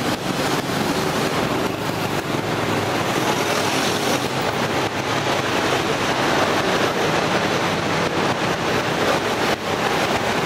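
Steady background rush of passing road traffic.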